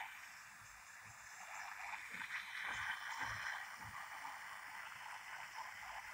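Onlite L-SS52 pocket digital radio's small speaker hissing with FM static while tuned to 87.5 MHz. The hiss grows rougher and a little louder about two seconds in.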